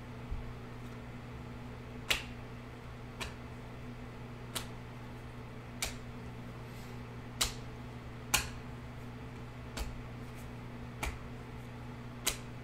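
Stiff, glossy Panini Prizm trading cards flicked one at a time through a stack in the hands, each card giving a sharp click about once a second, over a steady low hum.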